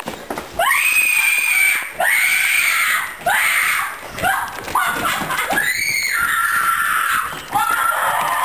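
A girl screaming over and over in a string of about seven shrill shrieks. Each one rises sharply in pitch and then holds. The longest, slightly lower scream comes about six seconds in.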